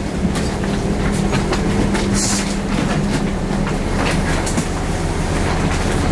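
Steady running drone of a moving vehicle with a low hum, a few faint clicks and a short high hiss about two seconds in.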